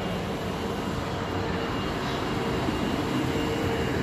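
EF64 electric locomotive pulling slowly away from the platform: a steady running hum with one held tone.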